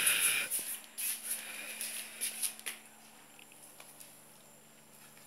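A short scrape as a pasta bowl is handled and set down, then scattered faint clicks and rustles of a young dog eating pasta from the bowl on the floor, fading to near quiet.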